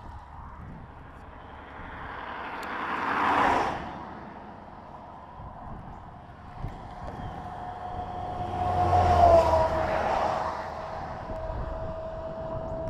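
Road traffic passing close by: one vehicle swells and fades about three seconds in, then a louder truck goes by around nine seconds in with a low engine hum and a tyre whine that drops in pitch as it passes.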